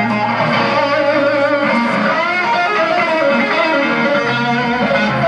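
Electric guitar played through an amplifier, loose sustained notes and phrases rather than a song, typical of a stage soundcheck.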